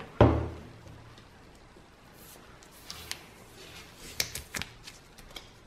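Packaging on a water filter module being handled and opened: a dull knock at the start, then scattered short rustles and crinkles.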